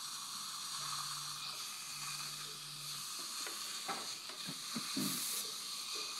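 Steady hiss of dental high-volume suction drawing air through a NOLA dry-field retractor and saliva ejector. A few light clicks and a short, louder burst of hiss come about five seconds in.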